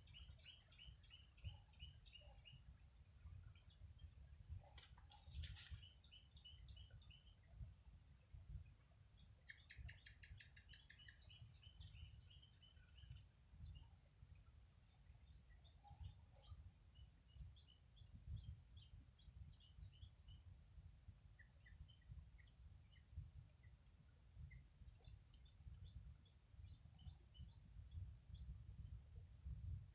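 Near silence: faint outdoor ambience with a steady high insect drone, scattered short bird chirps and a low rumble.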